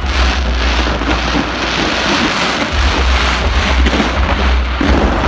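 Large fireworks display: a dense, continuous crackling of bursting shells and glitter, over a low rumble that drops out briefly in the middle.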